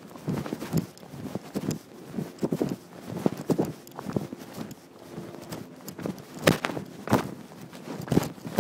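Footsteps, heard as irregular knocks and scuffs at an uneven pace, the loudest knocks near the end.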